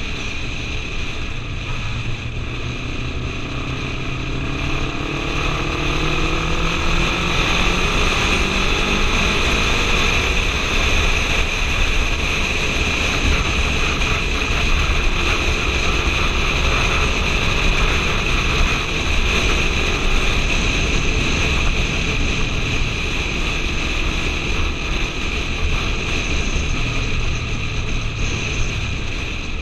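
Motorcycle engine and wind rushing over the microphone while riding. The engine climbs in pitch over the first several seconds as the bike accelerates, then holds a steady cruise.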